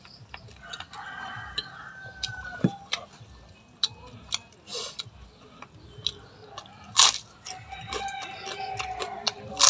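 Rooster crowing, one drawn-out call about a second in and another from about eight seconds in, with scattered sharp clicks between them.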